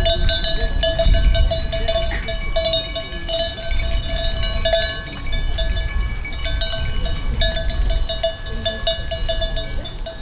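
Metallic bell-like tones ringing and tinkling, one lower ring recurring again and again under many short higher chimes, over a low rumble.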